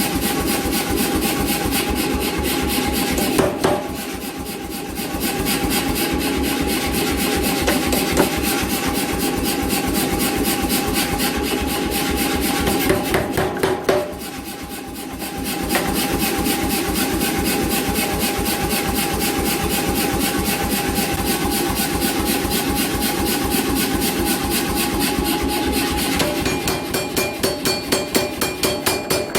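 An 88 lb C41 self-contained power hammer running, delivering a rapid, steady stream of blows over a steady motor whine as it forges hot steel. It pauses briefly twice, and near the end the blows come as separate, louder strikes.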